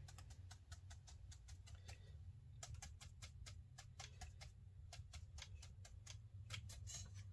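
Faint, irregular tapping of a hake brush being dabbed onto watercolour paper to stipple foliage, coming faster from about two and a half seconds in, over a low steady hum.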